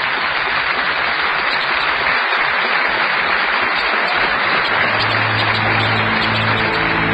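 Large theatre audience applauding steadily. About two-thirds of the way through, a low steady tone comes in beneath the clapping.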